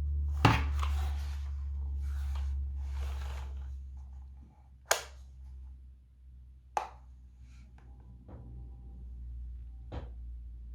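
Four sharp, isolated clicks or knocks a few seconds apart, the first the loudest, over a steady low hum.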